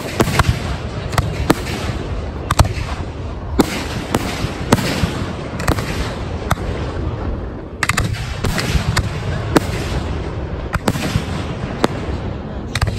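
Fireworks display: a dense run of aerial shell bursts, with sharp bangs every second or so over a continuous rumble, and a brief lull about eight seconds in.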